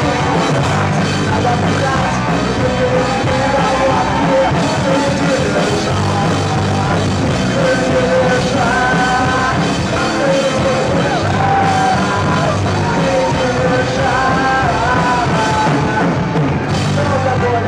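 Live rock band playing loud: drum kit under a moving melody line, the sound continuous throughout.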